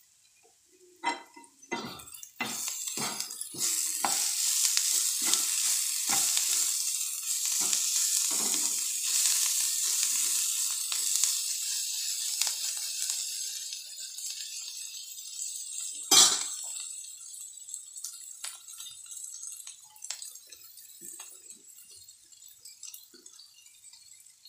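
Spatula stirring capsicum and green peas sizzling in a metal frying pan, with repeated scrapes and knocks against the pan. The sizzle dies down after about a dozen seconds, and one sharp knock on the pan comes about sixteen seconds in.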